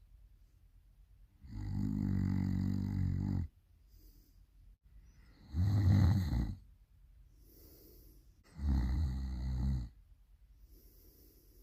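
Loud snoring: three long, pitched snores about three seconds apart, with soft, breathy exhales between them.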